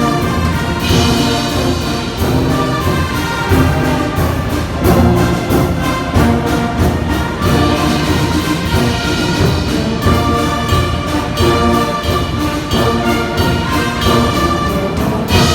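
Church brass band playing, several brass instruments sounding sustained chords and melody over a steady beat of percussion.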